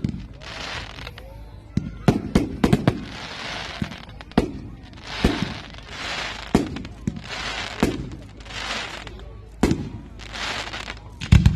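Aerial fireworks display: a string of sharp bangs at uneven intervals, each followed by about a second of hissing fizz as the shells burst.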